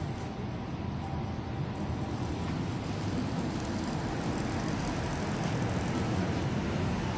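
Steady low rumble of motor traffic on a city street, growing a little louder toward the end.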